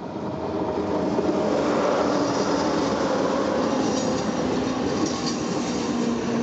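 Metre-gauge Rhaetian Railway electric train running past close by on the adjacent track, a steady rumble of wheels on rail that fades in over the first second. Faint high-pitched wheel squeal comes in about four seconds in.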